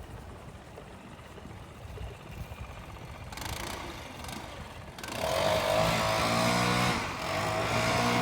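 A motor engine comes in about five seconds in and runs loud at a fairly steady pitch, easing off briefly about two seconds later before running on.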